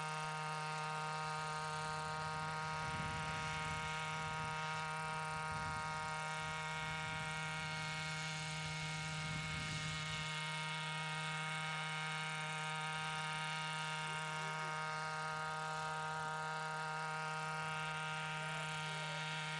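Radio-controlled scale Huey model helicopter's engine and rotor running steadily at a constant pitch while it hovers, with a low rumble from about three to ten seconds in.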